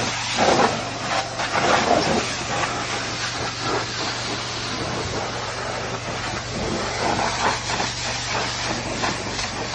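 High-pressure washer jet spraying water onto a semi truck's wheels and tires: a steady spray hiss, louder in surges in the first couple of seconds, over a steady low hum.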